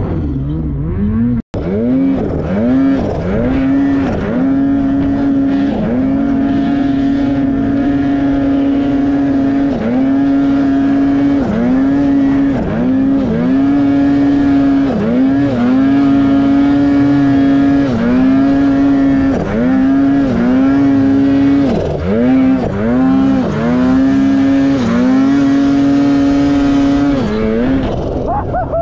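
Ski-Doo mountain snowmobile's two-stroke engine running hard in deep powder, held at high revs with repeated throttle chops: the pitch drops briefly and climbs straight back up every second or two. The sound cuts out for an instant about a second and a half in.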